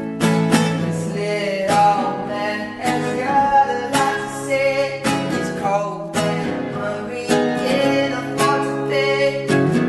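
Background music led by a strummed acoustic guitar with a steady rhythm, and a singing voice.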